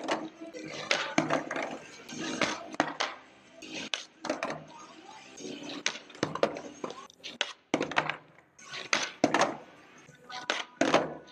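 Skateboard tricks on concrete: repeated sharp clacks of the board's tail popping and the deck and wheels landing, some hard and some light, echoing off the concrete walls and ceiling.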